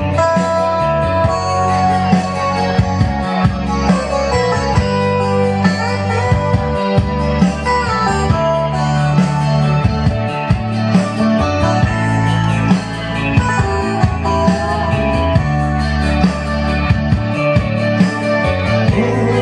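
Instrumental band music with a steady beat and no singing.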